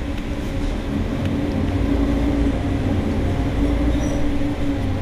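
Mercedes-Benz Citaro city bus standing still with its engine idling: a steady low hum, swelling slightly in the middle.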